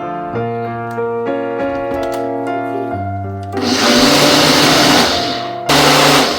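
A kitchen blender running in two short bursts, the first about a second and a half long, the second under a second, over soft piano music.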